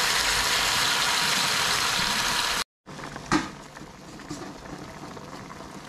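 Steady, loud hissing of food cooking over high heat, which stops abruptly about two and a half seconds in. A quieter background follows, with a sharp knock and a few light clicks.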